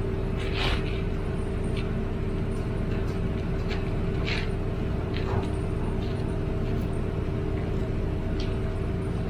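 Steady vehicle running noise: a low rumble and hum, with a few short, faint clicks.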